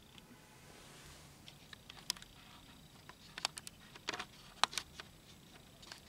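A scatter of sharp, irregular clicks and taps, handling noise, over a low background hiss; the loudest click comes about two-thirds of the way through.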